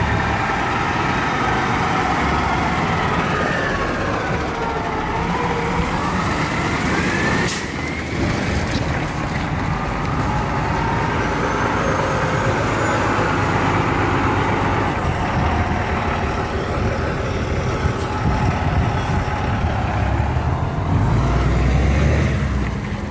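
Heavy diesel trucks passing at close range: a white Kenworth truck, then a red Peterbilt tractor with no trailer, engines pulling with the pitch dropping and then rising as they go by. The low rumble gets louder near the end as the tractor pulls away.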